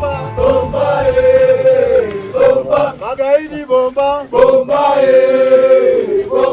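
A group of voices singing a chant together in chorus, with long held notes.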